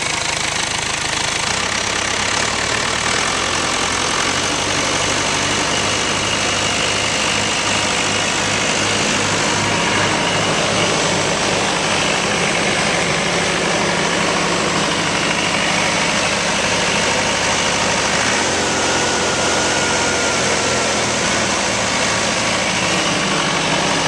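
Perkins diesel engine of a Terex 760 backhoe loader running steadily, its note shifting about a second and a half in and again about 18 seconds in.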